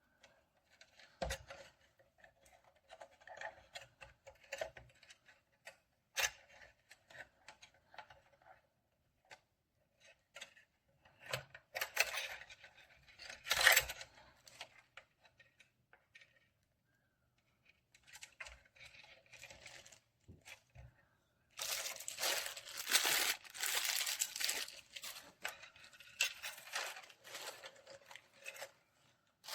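Packaging being handled, crinkling and tearing in irregular bursts with scattered clicks. There is a louder burst near the middle, and the rustling becomes dense and continuous for the last third.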